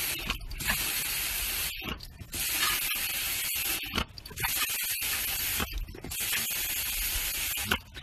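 A rushing, spray-like hiss in several bursts of one to two seconds each, broken by short pauses.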